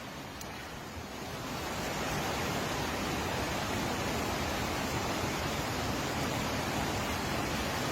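Steady rushing noise of a hurricane storm, with wind and water, that swells about a second in and then holds steady.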